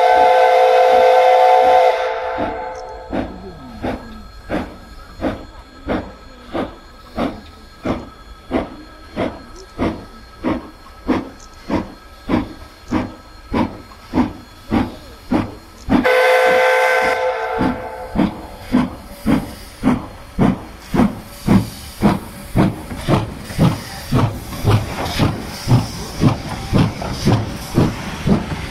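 Steam locomotive sounding its whistle for about two seconds, then working steam with regular exhaust chuffs over a steady hiss. A second whistle blast comes about halfway, and the chuffs quicken from about one and a half to about two a second and grow louder as the engine comes close.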